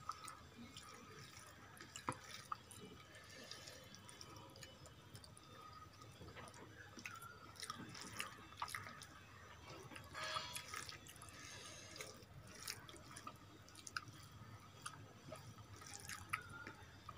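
Faint wet squishing and scattered small clicks of fingers mixing rice with fish curry on a plate, with a slightly longer squish about ten seconds in.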